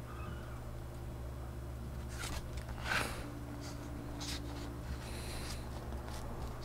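Paper booklet pages being handled: a few soft rustles and light scrapes between about two and six seconds in, over a steady low electrical hum.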